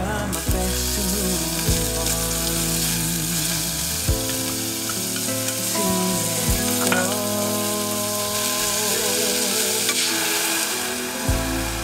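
Salmon pieces and sliced onion sizzling in a small nonstick saucepan, the fish frying in its own fat with no oil added. Wooden chopsticks stirring knock against the pan a few times.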